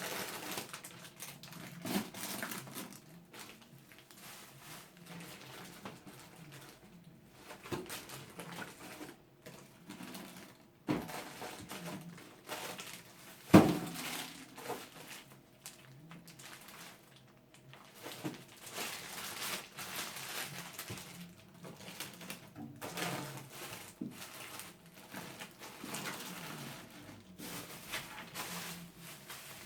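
Food packages and containers being handled and set down on fridge shelves: scattered knocks, clatter and crinkling of packaging, with one sharp knock about halfway through.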